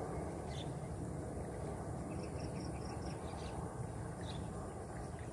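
Outdoor ambience by a flooded field: a steady low rumble, with a brief run of quick high chirps about two seconds in and a few faint clicks.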